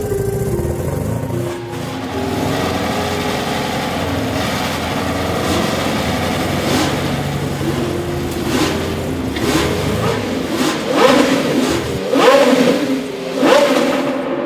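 Porsche engines running and being revved, with three sharp rises in revs near the end, over background music with held notes.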